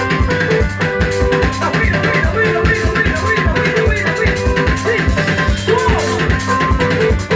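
A band playing music: a drum kit keeps a steady beat with bass drum and snare under a bass line and repeated held melodic notes.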